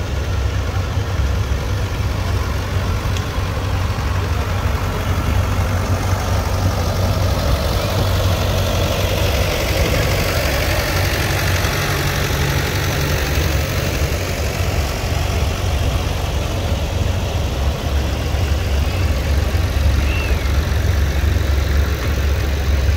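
Antique tractor engines running steadily.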